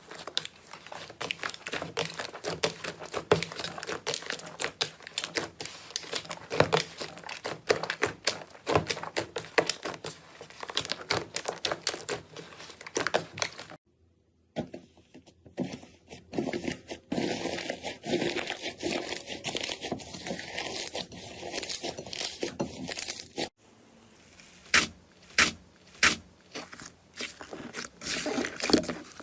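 Slime being squeezed and worked, giving a dense run of crackling, popping clicks. It breaks off twice, about halfway and again later, as one clip gives way to another; in the last few seconds the pops come fewer and louder.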